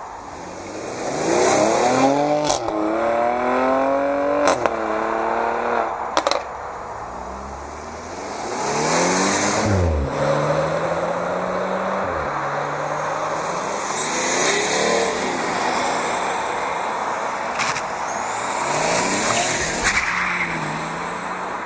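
Several cars accelerating hard past one after another, each engine note climbing through the revs and dropping back at every upshift. The first car's shifts come with short sharp cracks about two, four and six seconds in; an Audi A4 Allroad 2.0 TFSI's four-cylinder turbo passes around ten seconds in, and a BMW 330d e46's straight-six diesel near the end.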